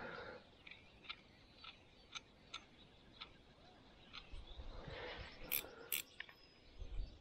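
Faint light clicks, about two a second, then a soft rustle with two sharper clicks about five and a half and six seconds in: carp fishing tackle being handled and set after the cast.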